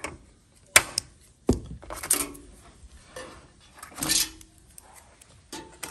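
Scissors snipping plastic zip ties, then the cut ties being pulled free: a few sharp separate clicks with short rustling, rattling handling sounds between them.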